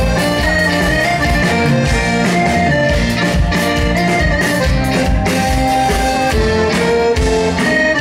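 A live band playing an instrumental passage with no singing. Drums keep a steady beat under guitar and keyboard melody lines.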